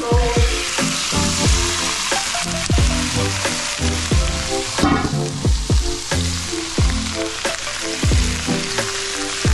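Goose tenderloins and bacon slices dropping into a hot nonstick frying pan and sizzling steadily as they fry. Background music with a regular deep bass beat plays underneath.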